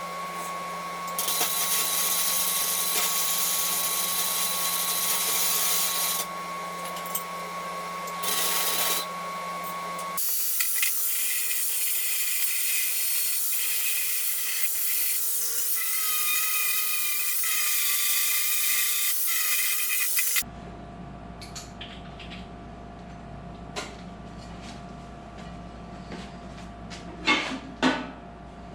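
Power grinder running steadily on steel, grinding a weld flat on an angle-iron tool rest so its top is smooth, with a steady whine. The sound changes abruptly twice; in the last third the grinder is off, leaving a low hum and a few sharp metal knocks near the end.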